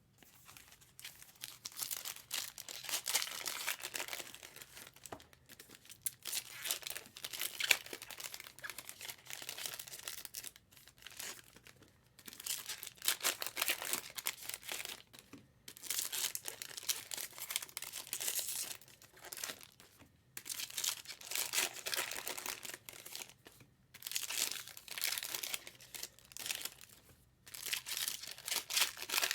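Trading-card pack wrappers being torn open and crinkled by hand, in repeated bursts a few seconds long with brief pauses between them.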